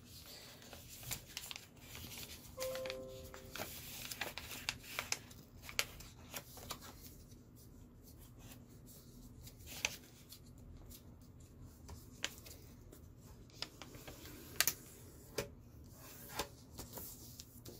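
A sheet of paper being folded into a paper airplane: fingers sliding along the paper and pressing the creases, faint irregular rustles and crinkles.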